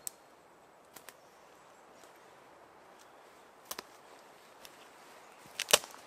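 Footsteps on the forest floor snapping dry twigs: a few scattered sharp cracks, some in quick pairs, the loudest near the end.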